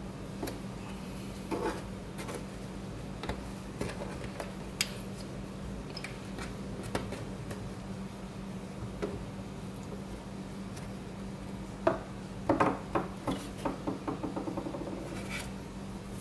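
Hands and a small screwdriver working on a picture frame's hardboard backing: scattered light clicks and taps of metal against the frame. Near the end comes a cluster of louder knocks and a quick rattling run of small ticks as the backing board is lifted out and set down. A steady low hum runs underneath.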